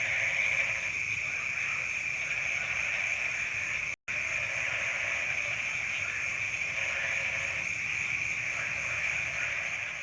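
Dense chorus of night animals in a rice field, a steady high-pitched trilling with fainter calls lower down. It cuts out for an instant about four seconds in and fades near the end.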